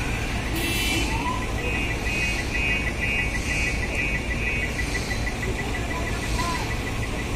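Heavy diesel engine of a mobile crane running steadily, with a rapid, high-pitched electronic warning beeper going off several times a second over it.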